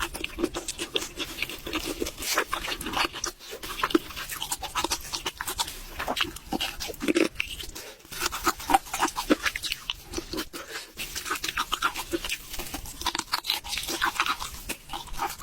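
Close-miked chewing and crunching of food: a dense, irregular run of crisp crunches and clicks.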